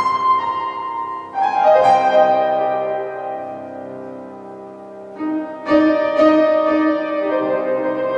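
Grand piano played live: full chords struck near the start, again about a second and a half in, and again around five to six seconds in, each left to ring and fade slowly.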